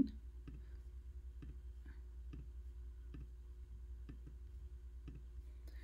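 Faint, even ticking about twice a second over a low steady hum.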